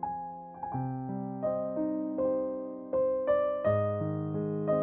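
Background music: a keyboard melody, its notes struck one after another and left to fade.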